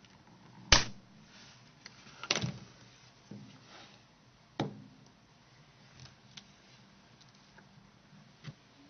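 Plastic clips of a Nokia 6680's antenna cover snapping loose as it is pried and pulled off with a plastic opening tool: a few sharp clicks and knocks, the loudest about a second in, more around two and a half and four and a half seconds, then fainter ticks.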